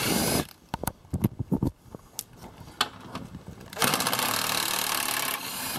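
Cordless power driver spinning bolts out of a car's plastic lower engine cover. It runs in two bursts, one for about the first half second and a longer one of about a second and a half near the end, with light clicks and taps of socket and bolt in between.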